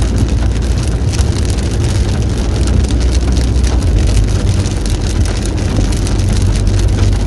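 Rain falling on a moving car, heard from inside the cabin as a dense patter of fine ticks over a steady low rumble of road and engine noise.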